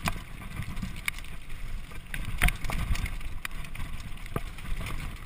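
Mountain bike riding fast down a bumpy dirt trail: a steady low rumble of tyres and wind on the microphone, with irregular clicks and knocks as the bike rattles over the bumps.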